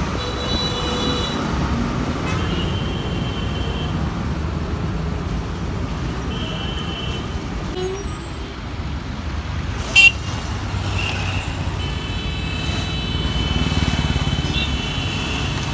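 Heavy road traffic of lorries and cars with engines running, and vehicle horns honking in several spells. There is one brief sharp crack about ten seconds in, and a motorcycle passes close by near the end, louder for a couple of seconds.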